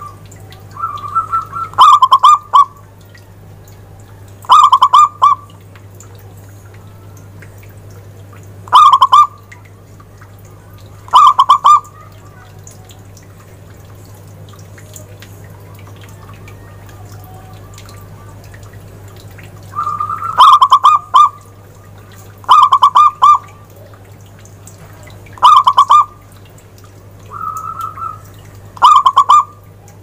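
Zebra dove (perkutut) cooing: eight loud, short stuttering coo phrases, each under a second. They come in two groups with a pause of several seconds in the middle, and some open with a softer lead-in note.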